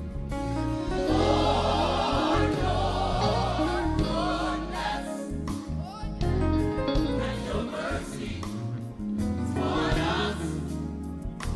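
Gospel choir singing with a full band: voices in wavering runs over steady bass and keyboards.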